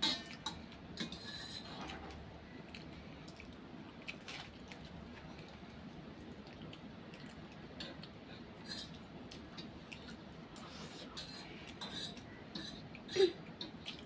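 Spoon and fork clinking and scraping on steel plates while noodles are eaten, with slurping of noodles near the start. A louder short sound about thirteen seconds in.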